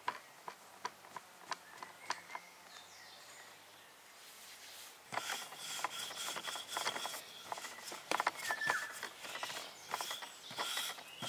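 Hands pressing and kneading dough on a wooden pastry board, heard as scattered sharp knocks. About five seconds in, a wooden rolling pin starts rolling the dough out on the board: a denser, continuous run of knocks and scraping.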